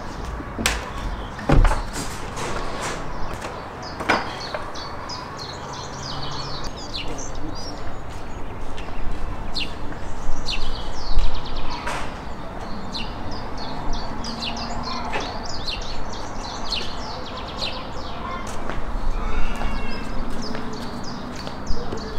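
Small birds chirping and singing over and over, with a few sharp knocks and thuds as things are set down.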